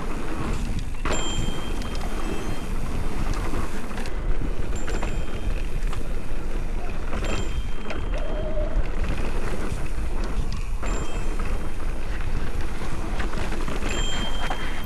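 Wind rushing over an action camera's microphone, with an electric mountain bike's tyres running over a dirt trail and the bike rattling on a fast downhill run. Brief high-pitched squeaks come through now and then.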